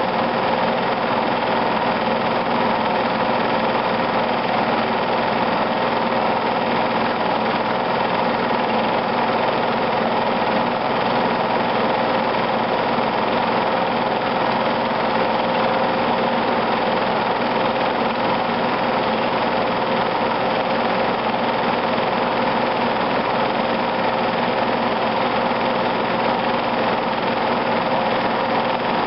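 Film projector running: a steady, unbroken mechanical whir with a constant hum.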